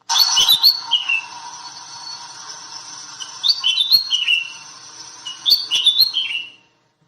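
Bulbul singing three short phrases of quick whistled notes that step down in pitch, about two seconds apart.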